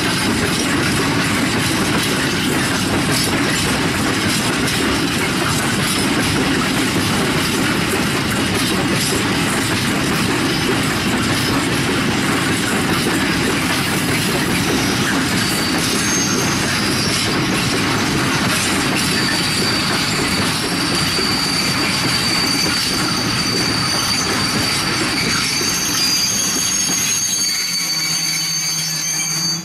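Freight train of empty flat wagons rolling past: a steady rumble and clatter of steel wheels on rail. A high wheel squeal joins about two-thirds of the way through and grows stronger near the end.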